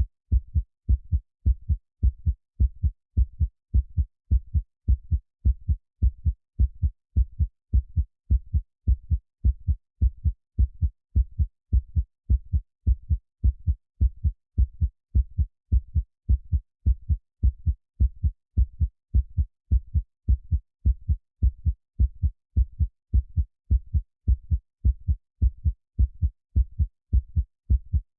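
Heartbeat sound: a steady, even rhythm of low lub-dub double beats, with no hiss behind them.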